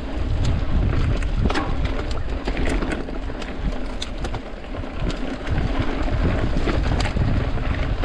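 Wind rumbling on the microphone of a cross-country mountain bike riding fast down dirt singletrack, with tyre noise and frequent sharp clicks and knocks as the bike rattles over roots and rocks.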